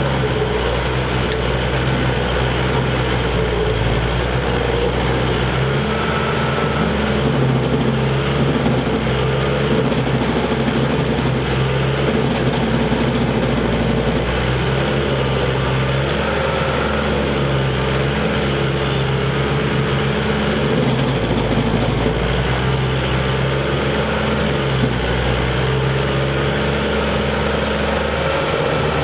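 Carlton 7015 stump grinder running at work, its cutter wheel grinding through a stump and soil. The engine runs steadily, its note shifting up and down now and then.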